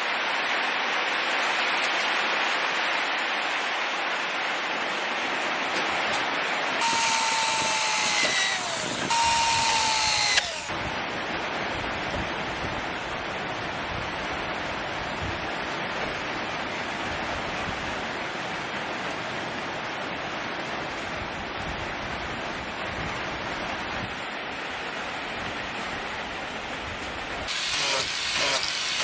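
Steady noise throughout, broken twice about seven and nine seconds in by a power tool running briefly, its whine falling as it spins down each time. Near the end an angle grinder with a sanding disc starts sanding the knife's wooden handle.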